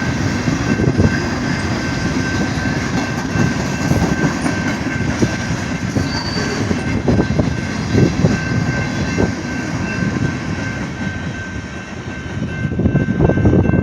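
Norfolk Southern train rolling through a crossing: a continuous heavy rumble of rail cars with a thin, steady high wheel squeal and scattered clacks of wheels over the rails.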